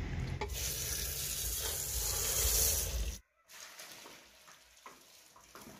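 A loud steady hiss for a little under three seconds that cuts off abruptly, followed by soft scattered knocks of cooked sweet potatoes sliding out of an aluminium pressure cooker into a plastic basin.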